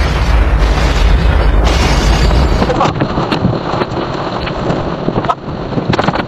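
Loud, deep rumbling roar with dense noise over it. About three seconds in it cuts to a thinner noise with scattered knocks.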